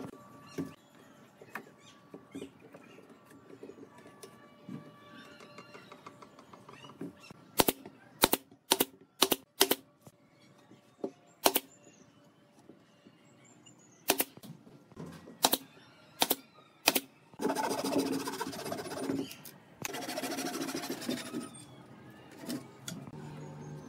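Pneumatic brad nailer firing into a wooden frame, about a dozen sharp shots in quick clusters. Near the end, a handsaw cuts the wood in two long spells of sawing.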